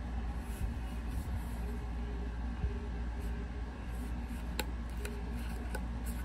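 Faint rustling and a few light clicks of small items and packaging being handled and unwrapped, over a steady low hum.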